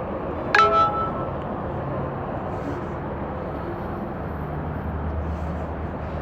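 Steady low rumble of vehicle noise, with one short, bright ringing ding about half a second in.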